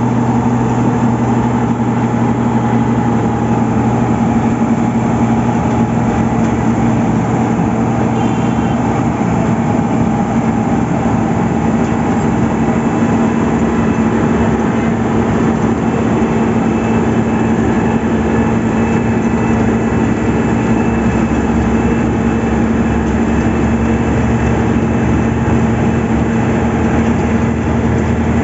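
Heavy road-construction machinery with its engine running steadily and loudly. The low end of the engine note grows stronger about twenty seconds in.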